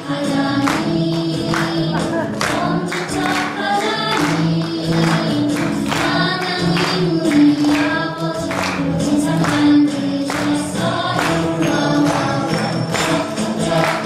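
Upbeat Christian praise song playing, with singing over a steady percussion beat.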